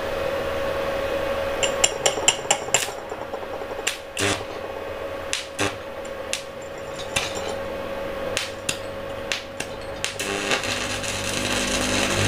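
Stick-welding arc being struck with a 2.6 mm RB electrode on a rusty steel sprocket, from a small 450 W IGBT inverter welder set to 60 A. A run of sharp crackling snaps comes as the rod is tapped and the arc catches and breaks, then settles into a steady arc crackle near the end.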